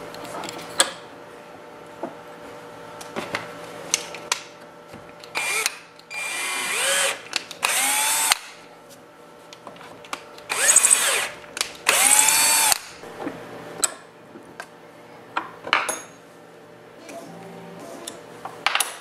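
Cordless drill run in four short bursts, its motor whining up in pitch and back down each time, driving a tap to cut threads in a Kossel Mini push rod part held in a bench vise. Light clicks and knocks of handling come between the bursts.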